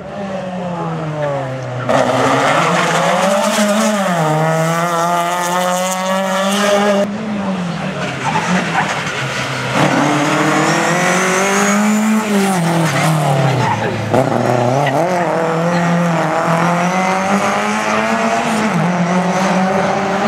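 Lada rally car's four-cylinder engine running at full throttle on a rally stage. Its pitch climbs and drops sharply several times as it changes gear and lifts for the corner.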